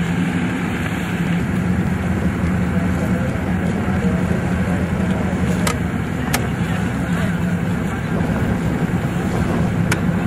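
Motorboat engine running at a steady drone under a haze of wind and water noise, with a few brief sharp clicks in the second half.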